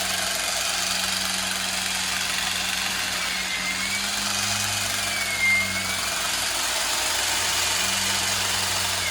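Long-reach multi-tool hedge trimmer running steadily at a tall hedge, with a steady motor hum under a dense blade noise. It is briefly louder about five and a half seconds in.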